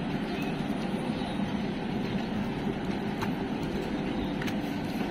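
Steady background rumble, with a few faint taps of footsteps on stone stairs.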